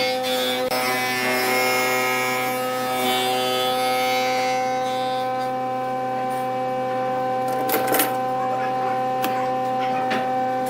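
Wood lathe motor running at a steady speed with an even hum and whine. For the first few seconds a hiss of the turning tool cutting the spinning wood rides over it, and a few short clicks come about eight seconds in.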